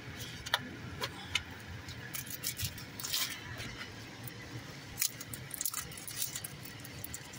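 Trading cards and a foil booster-pack wrapper handled in the hands: irregular small crinkles, rustles and card flicks, busiest around the middle and again about five seconds in, over a faint low hum.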